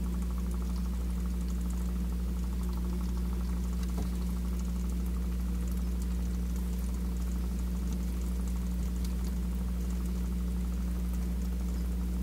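Aquarium pump running: a steady low hum, with faint water trickling and small ticks over it.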